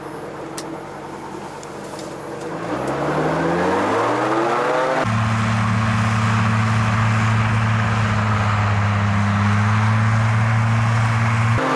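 A vehicle engine pulls away from idle and rises in pitch for about two seconds. About five seconds in it changes abruptly to a steady, loud, low drone, which shifts again just before the end.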